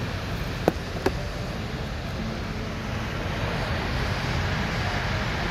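Steady rushing cabin noise inside a Boeing 787-8 on the ground, the air-conditioning running. About a second in, two sharp clicks come as the seat's adjustable headrest wing is moved by hand.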